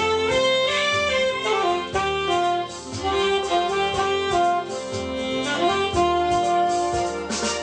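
Alto saxophone playing a melody of held notes, some joined by sliding glides.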